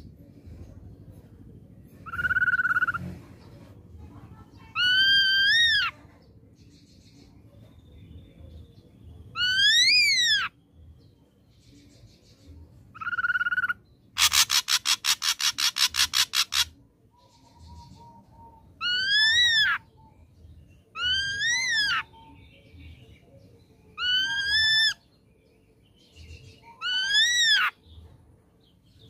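Ashy drongo calling: loud whistled notes that rise and fall, repeated every two to three seconds. Midway comes a rapid harsh rattle of about five pulses a second lasting some two seconds, and fainter short notes sound between the calls.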